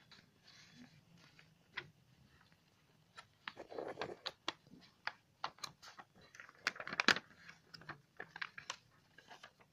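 A sheet of paper being folded and creased by hand on a tabletop: crisp crackles and rustling, sparse at first, then a dense run of sharp crackles from about a third of the way in.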